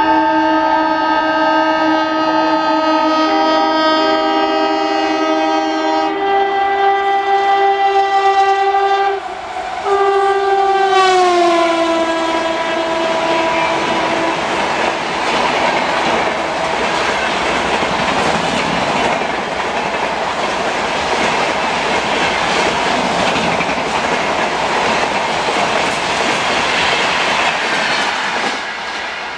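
An Indian Railways train passing at high speed: its locomotive horn sounds a long multi-note chord, breaks off briefly about nine seconds in, then drops in pitch as the locomotive passes. The coaches then rush by with wheels clattering over the rail joints until the train clears near the end.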